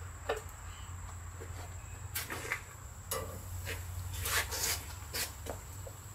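Beer can chickens on wire stands being set down on a smoker's metal grate: a string of irregular light knocks and clatter of metal on metal.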